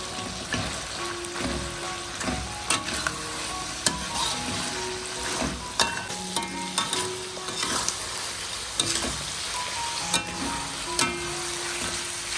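Stir-frying: food sizzling in a hot pan, with sharp knocks of the stirring utensil against the pan at irregular moments, about a dozen in all.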